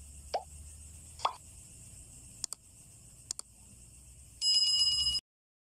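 Subscribe-button animation sound effects: a few short rising pops, two mouse clicks, then a bell ringing for under a second that cuts off suddenly.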